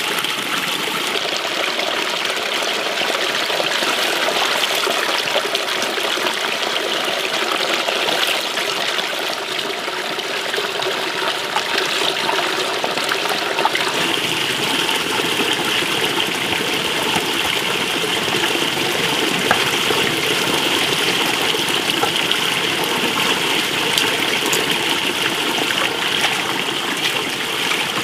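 Water pouring steadily from an open tap pipe into a brimming metal basin, splashing and spilling over its rim.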